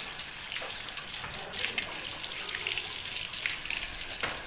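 Water running and splashing steadily as a motorcycle is rinsed and washed by hand, with a few sharp splashes.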